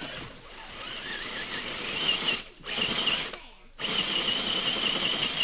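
Electric motor and geartrain of an RC scale crawler whining under throttle. The high, wavering whine comes in three bursts, with short cut-offs as the throttle is let off and reapplied.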